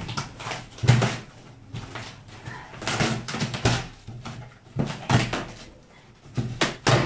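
A large cardboard shipping box being handled and opened: irregular knocks and scrapes of cardboard, a few in quick pairs, with rustling between them.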